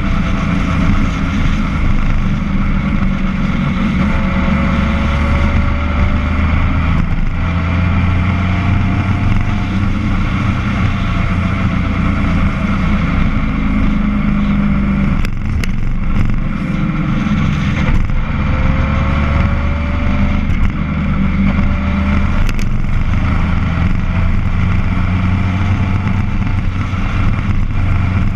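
Motor vehicle engine running under way along a road, its note sliding up and down and easing off briefly a few times, with road and wind noise.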